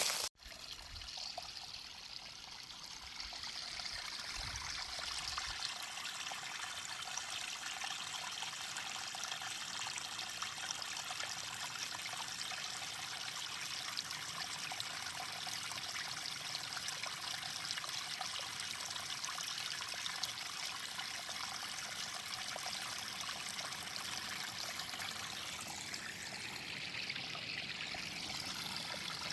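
Water running and trickling steadily, a continuous splashing flow, with a faint low rumble in the first few seconds.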